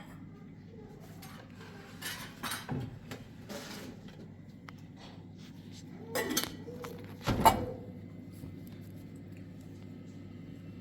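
Clinks and clatters of hard objects, like pots or dishes knocked together, in several separate bursts; the loudest, with a short ring, comes about seven and a half seconds in.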